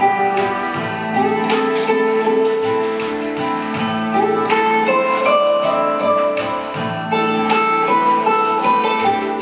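Instrumental music led by a plucked string instrument playing a melody of sustained, overlapping notes.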